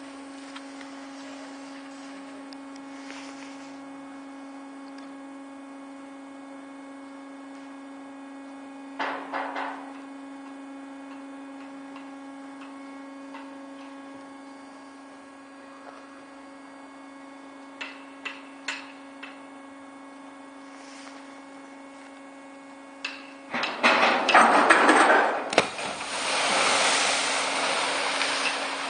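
A steady hum with a few scattered clicks, then, about 23 seconds in, a 12-person enclosed freefall lifeboat slides off its launch ramp with a loud clattering rush and plunges into the water. After the splash comes a sustained rush of churning water and spray.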